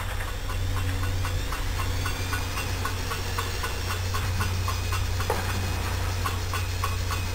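Electric drill running at low speed, spinning an engine valve against its seat through a hose on the valve stem: lapping the valve with coarse grinding compound. A steady motor hum with a light regular ticking, about three ticks a second.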